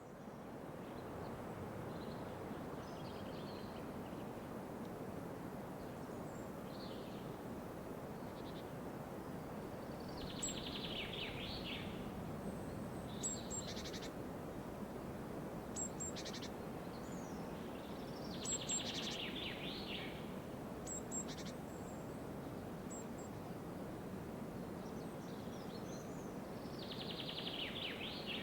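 Forest birdsong ambience over a steady rushing background. A songbird's rapid trilled phrase comes three times, about eight seconds apart, with short high chirps from other birds scattered between.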